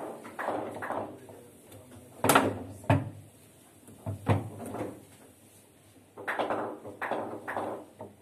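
Foosball table in play: sharp knocks of the ball struck by the figures and of the rods, a few spaced hits and then a quicker run of knocks in the last two seconds.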